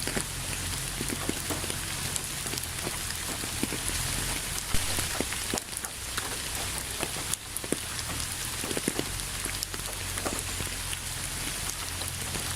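Steady rain falling on a surface, with a dense hiss and many separate drops ticking through it.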